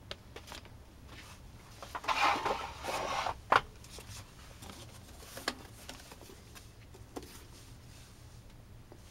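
Paper and cardboard being handled as a cardboard box is opened: a burst of rustling about two seconds in, a sharp tap just after it, then a few light knocks as the box flaps are folded back.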